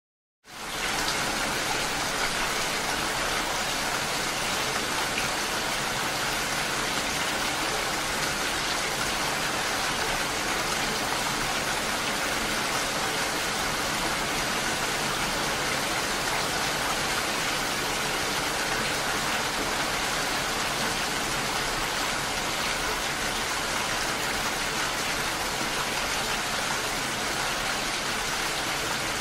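Heavy rain falling and splashing, a steady even hiss that comes in quickly about half a second in.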